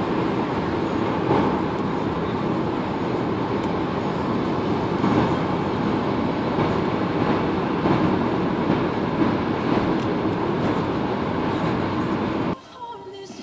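Road and wind noise inside the cabin of a Nissan Leaf electric car at about 90 mph: a loud, steady rush of tyres and air. Shortly before the end it cuts off suddenly and faint music begins.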